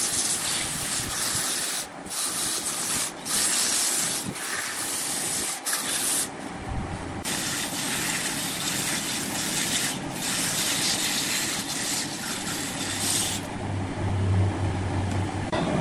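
A large red-wood turning spinning on a lathe while being sanded with a hand-held strip of abrasive cloth: a steady rushing hiss of grit on wood, broken by a few brief gaps where the strip lifts off. The hiss stops about thirteen seconds in, leaving a low hum.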